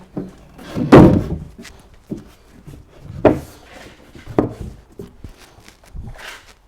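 Wooden knocks and thuds as a timber stair tread is handled and set back into place: the loudest about a second in, with further knocks around three and four and a half seconds in and a lighter one near the end.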